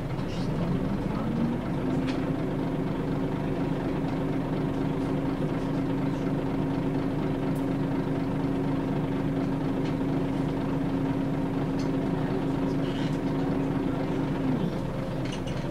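The Scania DSC9 diesel engine and drivetrain of a Scania L94UB bus, heard from inside the saloon while the bus drives along. A drone rises in pitch over the first second or so, then holds steady, and the whining tone drops away about a second before the end. A few light rattles sound along the way.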